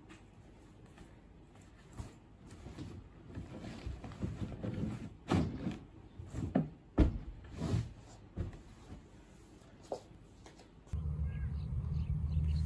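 Rustling of bedding with short muffled thumps, starting faintly about two seconds in, loudest in the middle and dying away. About eleven seconds in it gives way to a steady low rumble with birds calling.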